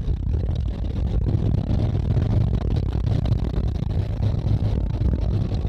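Camper van's engine and tyre noise heard from inside the cab while driving, a steady low rumble.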